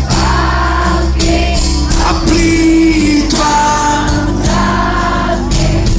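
Live pop-rock band playing with singing, loud and steady, heard from within the crowd in front of the stage.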